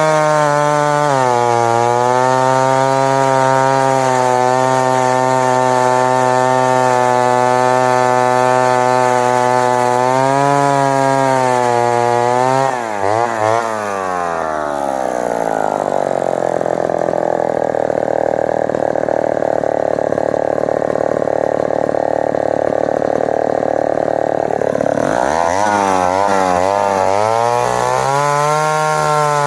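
Homelite Super Wiz 55 two-stroke chainsaw running at high revs. About halfway through, its pitch drops and holds lower for around ten seconds as it bogs into the wood under a cutting load, then revs back up near the end.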